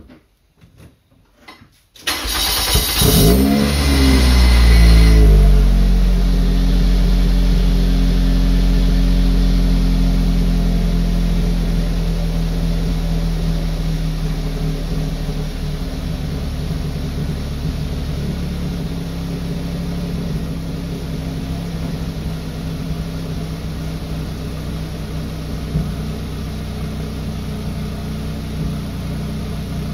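A Toyota MR-S's 1.8-litre four-cylinder engine starts about two seconds in, loud through its exhaust, flares up briefly and then settles into a high idle that slowly drops and steadies. It is being run so the fresh oil works through the engine after an oil change.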